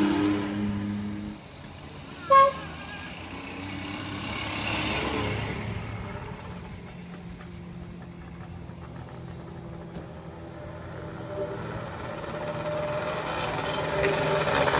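Vintage Wartburg cars with three-cylinder two-stroke engines driving past one after another. There is a short horn toot about two seconds in, and another car comes closer and gets louder near the end.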